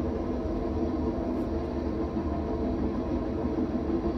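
Train running past with a steady, even running noise that stays level throughout.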